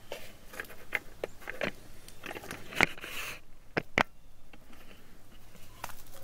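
Scattered clicks, knocks and scrapes of a truck's exterior door handle and door parts being worked by hand, with the sharpest clicks just under three seconds and about four seconds in.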